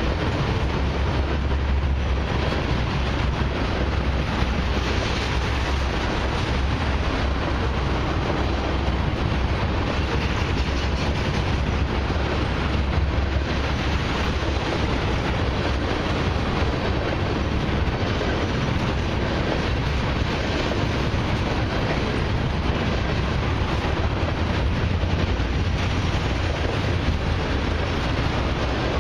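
Loaded crude oil tank cars of a long freight train rolling past: a steady heavy rumble of steel wheels on rail.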